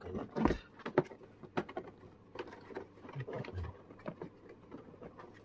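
Hard plastic knocking and rattling as a lawn mower's plastic grass catcher box is handled and turned over, with a few sharp knocks in the first second or two and lighter irregular handling noise after.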